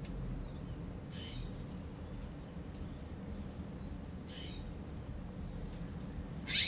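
Raccoons giving short, high chittering calls, three times, the last one near the end the loudest, over a steady low hum of city background.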